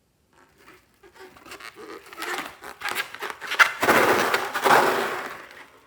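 Hands squeezing and rubbing a rubber balloon filled with small round pearl beads, a rustling, crackly handling noise with many small clicks that builds from about a second in and fades just before the end.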